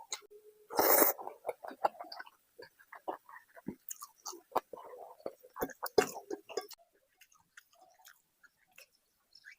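Close-miked chewing and biting of food: wet smacks and crunchy clicks of a mouth working through a mouthful, with a loud bite about a second in. The chewing thins out to a few faint clicks over the last couple of seconds.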